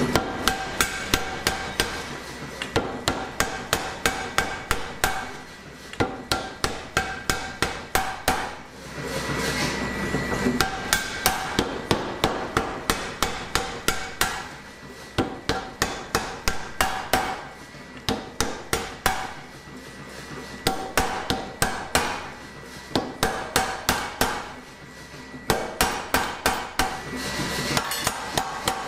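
Mechanical power hammer driven by a three-phase electric motor, drawing out a hot steel bar: runs of rapid, evenly spaced blows several times a second, broken by short pauses in which the machine's motor keeps running with a steady hum and faint whine.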